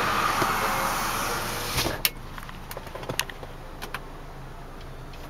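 Power window motor of a 2005 GMC Canyon running with a steady whir as the door glass moves, stopping abruptly with a click about two seconds in. A few light button clicks follow.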